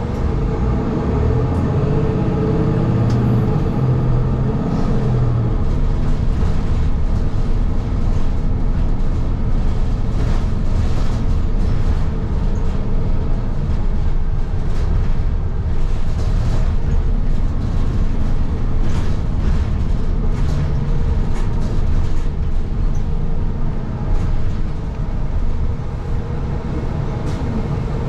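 Inside a moving city transit bus: steady engine and road drone with small rattles and clicks from the cabin, the engine note rising over the first few seconds.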